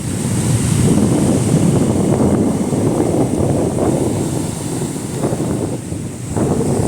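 Strong gusty wind blowing across the microphone, a dense low rumble that swells and eases, dipping briefly about six seconds in.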